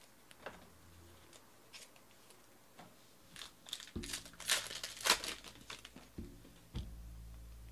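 A trading-card pack's wrapper being torn open and crinkled, with the loudest crinkling a little past the middle. Light ticks from handling the cards come before and after it.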